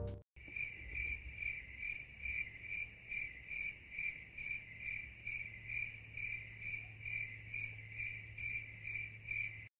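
A cricket chirping steadily, about two and a half short chirps a second, over a faint low hum; it stops suddenly near the end.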